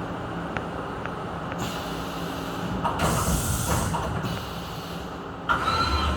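A UGINT UT650 vertical machining center running, a steady mechanical hum with two hissing bursts about two and three seconds in. Near the end a steady higher whine starts suddenly.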